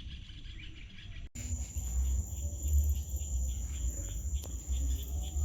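Crickets and other insects chirping at dusk, a steady high trill with pulsing chirps below it. About a second in the sound cuts abruptly, and a low rumble on the microphone then runs under the insects.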